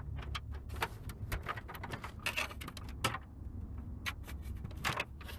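Plastic steering-column trim on a Range Rover being pried and pulled at by hand, giving an irregular run of sharp clicks and short creaking rasps over a steady low hum; the panel is still held by a hidden screw.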